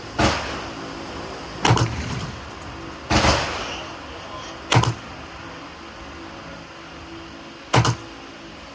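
Five rifle shots of 5.56 NATO ammunition from an AR-style rifle, fired at a steady pace about a second and a half apart, with a longer pause before the last. Several shots trail off in a short echo.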